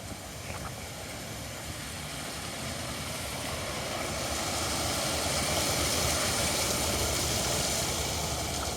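A passing vehicle's engine and rushing noise that slowly swells over several seconds and then eases off slightly near the end.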